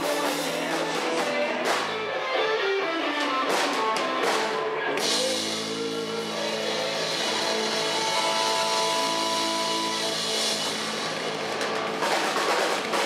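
Live rock band playing without vocals: electric bass, electric guitar and drum kit. Cymbal hits in the first few seconds give way to long held, ringing chords.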